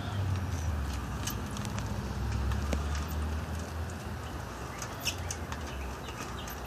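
Large wooden running wheel turning on its pipe axle as a raccoon runs inside it: a low rumble that eases off about four seconds in, with scattered clicks and knocks, one louder knock near the end.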